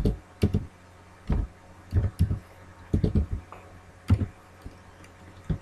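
Computer keyboard being typed on slowly, about ten separate keystrokes at an uneven pace.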